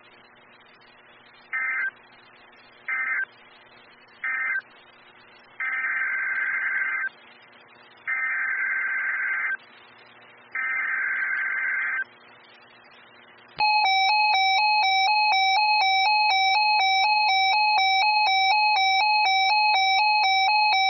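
Emergency Alert System SAME data bursts over NOAA Weather Radio. First come three short bursts, the end-of-message code closing one alert, then three longer header bursts starting the next message. About two-thirds of the way in, a loud pulsing alert tone begins. Low hiss and hum lie under the gaps between bursts.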